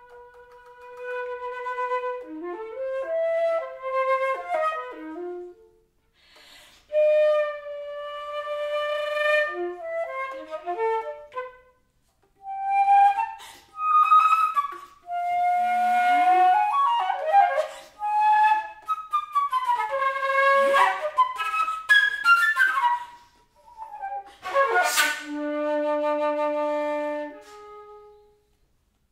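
Solo concert flute playing a contemporary piece: held notes and quick flurries broken by short pauses, with bent and gliding pitches. About 25 seconds in comes a breathy, accented attack, followed by a low held note.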